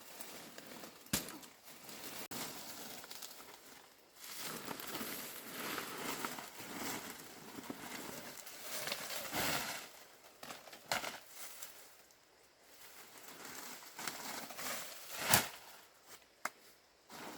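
Rustling and crackling of plant material being handled, with a few sharp knocks, the loudest about fifteen seconds in.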